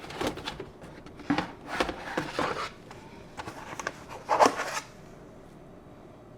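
Kitchen clatter: a mixing bowl and utensils being handled and set down, a few short knocks and scrapes, the loudest about four and a half seconds in, then quiet.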